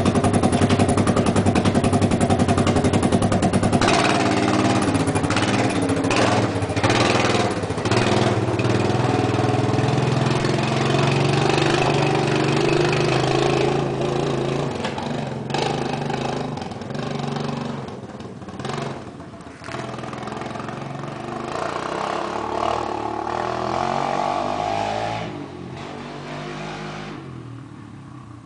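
ATV engine idling close by, then revved and pulling away, its pitch rising and falling with the throttle and the sound growing fainter as it rides off.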